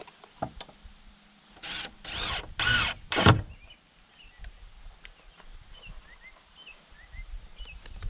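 Cordless drill driving screws into a door's strap hinge: four short bursts of the motor running, about two to three seconds in, after a few small knocks. Faint bird chirps follow.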